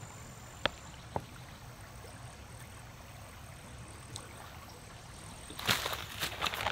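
A quiet stretch with two light crinkles from a plastic food pouch being handled, then footsteps crunching on loose river cobbles from about five and a half seconds in.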